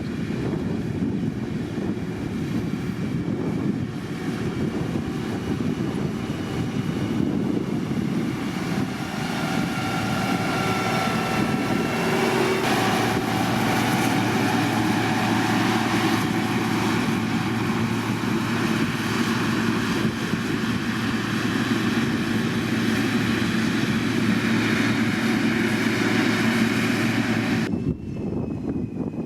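Diesel engine of heavy road-construction machinery running steadily under load, a continuous drone with a whining tone above it. The sound changes abruptly near the end, losing its higher part.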